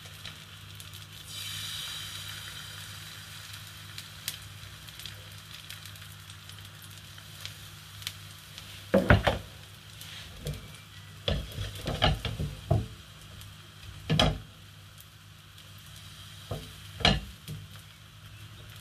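Pancake batter sizzling steadily in a frying pan on a gas hob. In the second half come a series of loud knocks and clatters of kitchen things being handled.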